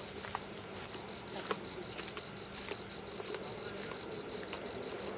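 Night-singing insect trilling: a steady, high-pitched pulsing chirp repeated about eight times a second, with a few faint scattered clicks.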